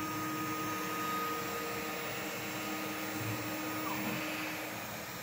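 CNC router for milling plastic boxes running on test, its axis motors moving the spindle head with a steady whine. The whine glides down and stops a little under four seconds in, over a lower steady hum and hiss.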